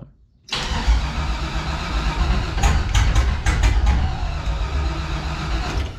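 Supercharged LS V8 being cranked over on its starter in another attempt to get a hard-starting engine to fire. The sound starts suddenly about half a second in, with a few sharp clicks about halfway through.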